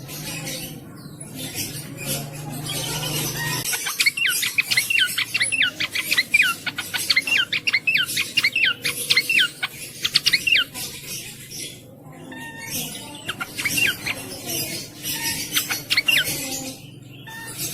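A cingcoang (shortwing) singing a fast, chattering run of high, sweeping notes. The run starts about four seconds in and lasts several seconds, and a shorter run follows near the end. A low hum lies under the opening seconds.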